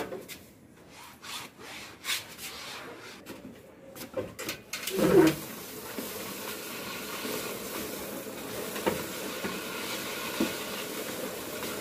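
A cloth rubbing in short strokes across a manual treadmill's belt. About five seconds in, after one brief louder pitched sound, the manual treadmill's belt runs under walking feet: a steady rubbing noise with occasional light clicks.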